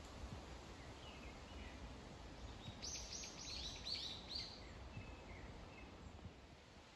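A songbird sings a quick run of about eight high notes, starting about three seconds in, with a few softer chirps before and after, over faint steady background noise in woodland.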